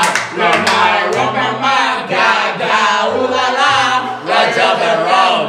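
Song playing: singing voices over a bass line that steps from note to note.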